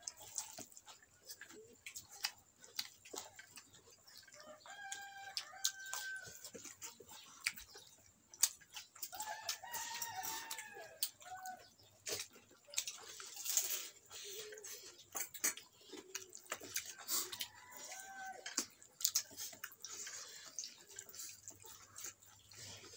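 Chickens clucking and a rooster crowing, over the small clicks and smacks of fingers mixing rice on a wooden plate; liquid is poured onto the plate a little past halfway.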